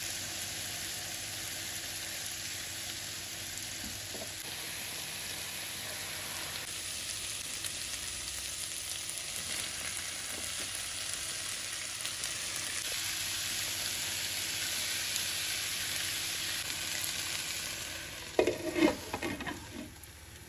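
Vegetables sizzling as they fry in a nonstick wok and are stirred with a silicone spatula, a steady hiss. Near the end a glass lid clatters several times as it is set on the pan.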